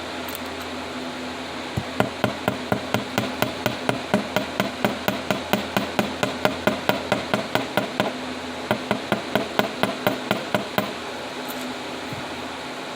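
Flat end of a steel block tapping a paperclip wire to flatten its bends: a quick run of light metal-on-metal taps, about four to five a second, with a short pause partway through.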